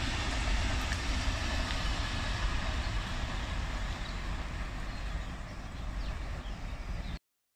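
Steady rumble of a train running past, slowly fading, which stops abruptly about seven seconds in.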